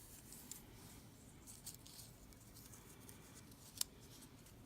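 Faint rustling of small paper craft pieces and packaging being handled, with one short sharp click a little before the end.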